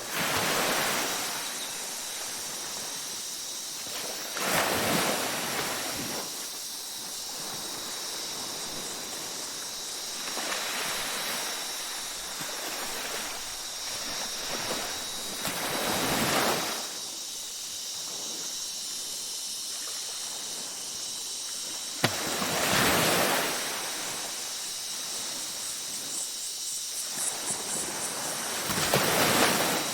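Waves breaking on a beach in slow swells about every six seconds over a continuous wash of surf. A steady high-pitched whine sits underneath, and there is a single sharp click about two-thirds of the way through.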